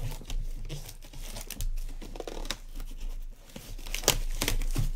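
Wrapping being torn and crinkled off a sealed box of baseball trading cards, in irregular crackly rips.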